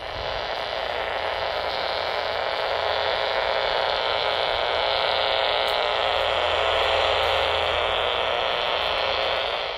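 Portable AM radio's speaker giving out a steady static buzz: power-line RF interference picked up on the AM band. It cuts off suddenly near the end.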